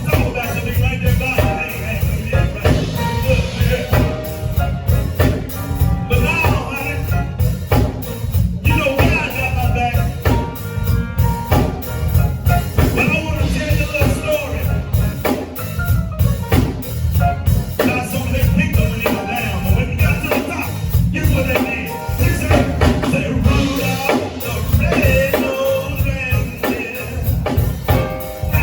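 Live band playing: drum kit, electric bass and keyboards, with a steady beat.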